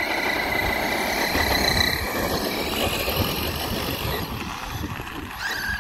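Electric brushless motor of an Arrma Outcast 6S RC truck whining steadily under load as it tows a skater, over the rough rolling noise of tyres and skate wheels on asphalt. The sound fades over the last couple of seconds as the truck pulls away.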